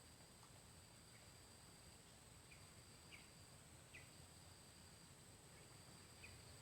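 Near silence: faint outdoor background with a steady high hiss and about six soft, short bird chirps scattered through it.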